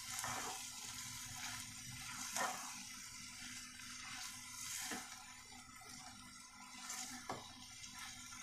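Silicone spatula stirring thick chickpea curry in a nonstick pan: soft, irregular scrapes and squelches as the mix is turned, over a faint steady hiss.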